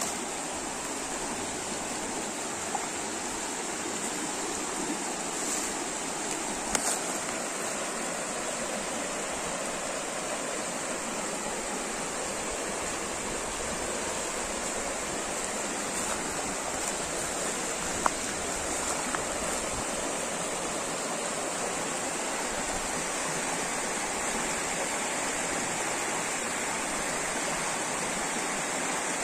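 A river's flowing water, a steady, even rush, with a few brief clicks.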